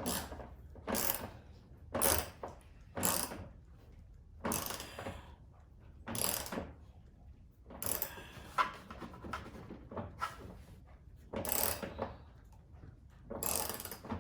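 Ratchet wrench clicking in a series of short strokes, spaced irregularly about one to two seconds apart, as a tow-mirror mounting bolt is tightened.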